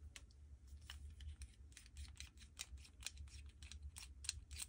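Faint, irregular clicking, several clicks a second, of a flathead screwdriver working a Schrader valve loose inside a paintball marker's low-pressure regulator (LPR) body, with a low steady hum underneath.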